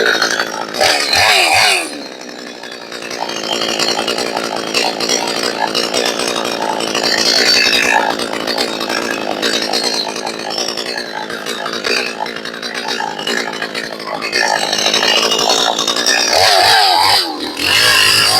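62cc Perla Barb clone chainsaw with a 20-inch bar revving at high throttle, then running under load as it cuts into a gum log, its engine note wavering; it revs freely again near the end.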